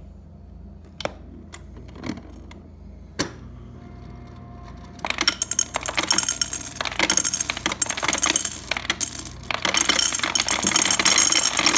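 Samsung refrigerator's through-the-door ice dispenser: a few clicks, then about five seconds in ice cubes start clattering out of the chute in a rapid, loud stream, with a brief let-up before it resumes. The ice maker, which kept freezing up, is dispensing freely after adjustment.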